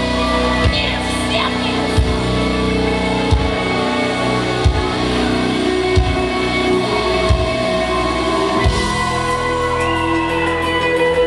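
Metal band playing live: electric guitars held over slow, heavy drum hits about every second and a third. About nine seconds in the heavy hits stop and a quick, light ticking takes over.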